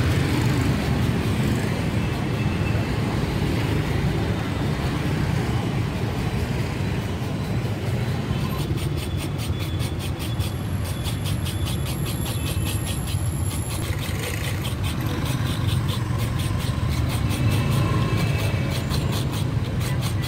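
Steady rumble of motorbike and car traffic on a busy street. From about eight seconds in, a metal scraper rasps against fresh coconut meat in a half shell, shredding it in quick even strokes, about three or four a second.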